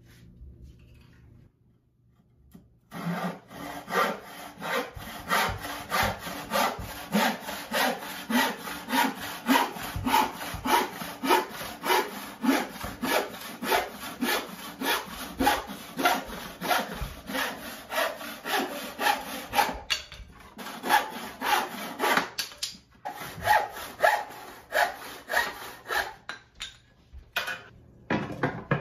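Handsaw cutting a pine board in steady back-and-forth strokes, about two or three a second. The sawing starts a few seconds in, stops briefly twice about two-thirds of the way through, and ends just before the close.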